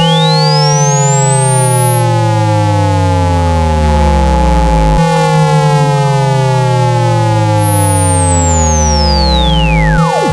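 Loud synthesized speaker-cleaning tones for pushing water out of a phone speaker. A pure tone sweeps up from low to very high over about five seconds and glides back down near the end. Under it run steady held tones and a stack of falling tones that restart about every five seconds.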